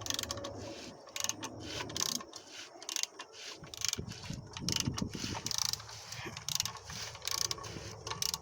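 A ratchet wrench clicks in repeated short strokes as it turns the crankshaft of a Volkswagen CBZB 1.2 engine by hand. The engine is being turned over to check the timing.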